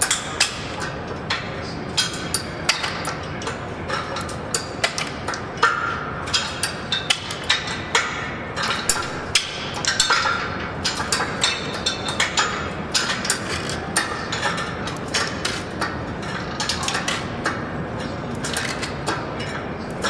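Foot-pedal shrinker-stretcher clacking as its jaws bite a sheet-metal strip and let go, over and over at an uneven pace of one to three clacks a second, while the strip is worked along to bend it into a curve.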